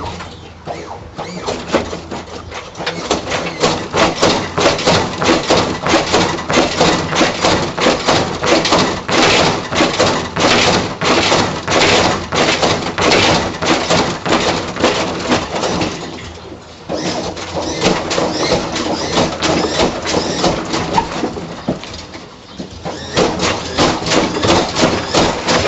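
Ford Thunderbird lowrider's hydraulic suspension being worked, the car bouncing with a rapid rhythm of clanks and creaks at about two to three a second. The rhythm stops briefly twice, then starts again.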